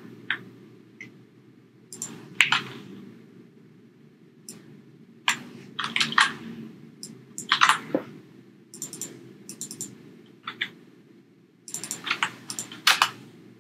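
Computer keyboard typing in short bursts of keystrokes, with pauses of a second or two between the bursts.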